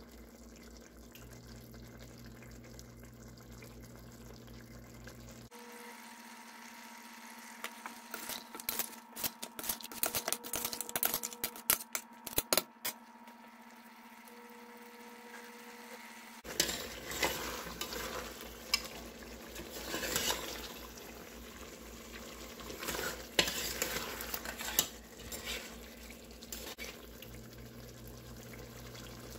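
Goat meat and spices cooking in an open stainless pressure cooker pot: bubbling and sizzling, with a spatula stirring and knocking against the pot in irregular clicks and scrapes. The sound changes abruptly twice at cuts, and from about halfway it turns to a denser crackling sizzle as the water cooks off and the meat fries in the oil left behind.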